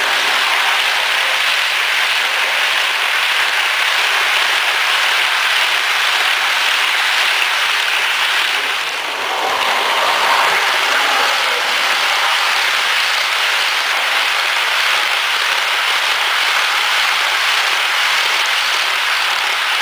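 Model train running on layout track: a CFR 060-EA electric locomotive model and its passenger coaches make a steady rushing rattle of small wheels on the rails, with a brief dip about nine seconds in.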